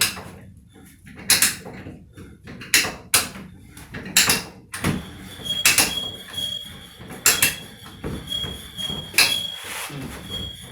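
Hand die stock cutting a thread on a metal (GI) pipe: irregular metallic clicks and knocks as the die handle is worked round. A thin high whine comes and goes from about halfway.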